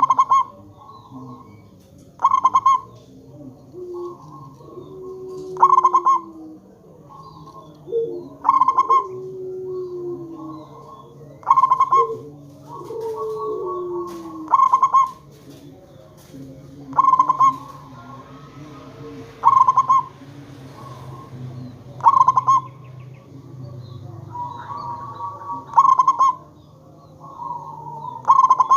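Zebra dove (perkutut) cooing repeatedly: a short loud call phrase about every two and a half to three seconds, with softer, lower gliding calls between them over a low steady hum.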